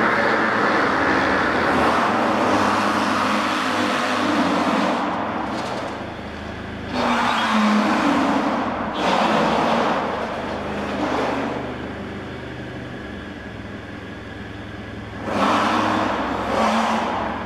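Hyundai Sonata taxi moving slowly through an underground car park: a low engine hum, with its tyres hissing over the wet floor in several surges, the loudest about seven, nine and fifteen seconds in. The concrete garage gives the sound an echo.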